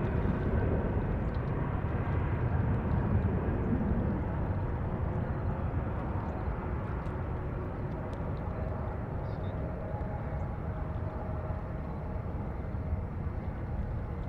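Jet airliner's engines rumbling, with a faint steady whine over the rumble, slowly fading as the aircraft moves away.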